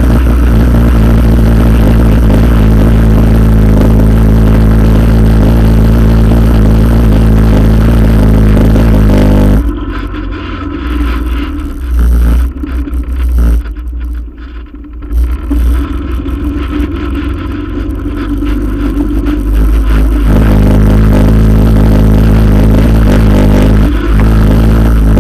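ATV engine running at a steady speed, loud and close from a camera on the front rack, with vibration rattle. About ten seconds in the engine note drops away for about ten seconds, leaving a low rumble with knocks and scrapes, then comes back at the same steady pitch.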